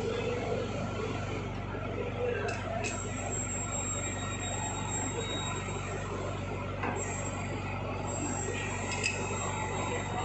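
Steady electric machinery hum of a workshop, with a few faint metallic clicks as the jaws of a lathe's four-jaw chuck are set with a chuck key.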